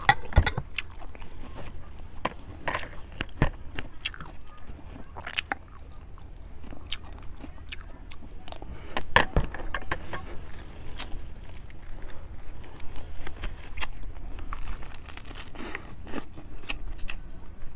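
Close-miked eating sounds: chewing and crunching, with sharp clicks and scrapes of a spoon against ceramic bowls, and a crunchy bite into a fresh lettuce leaf near the end.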